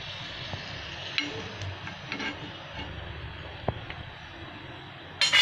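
Hot oil in a kadhai sizzling steadily around a small test drop of dal vada batter, with a few faint clicks; the sizzle shows the oil is hot enough for frying. A sudden loud rush of noise cuts in just at the end.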